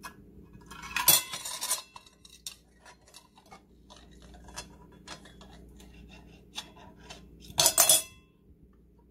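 Metal fork clinking and scraping against a tin can and a ceramic plate as salsa is scooped out and spread onto fried eggs: a loud clatter about a second in, a run of small taps and scrapes, and another loud clatter near the end as the fork comes to rest on the plate.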